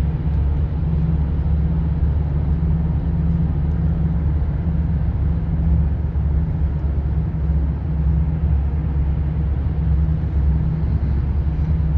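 Steady low rumble of tyre, road and engine noise heard inside a car's cabin while cruising at motorway speed.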